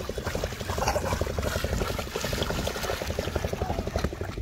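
Splashing of a child's feet wading through shallow river water, over the fast, even putter of a small motor running.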